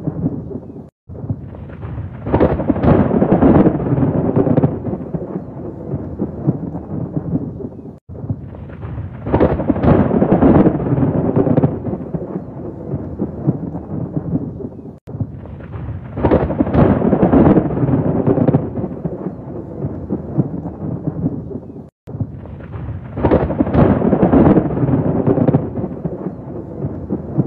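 Rolling thunder rumbles, one swelling peal about every seven seconds over a steady lower rumble. Each peal is the same, with a brief cut to silence between them, so it is a short thunder recording looped.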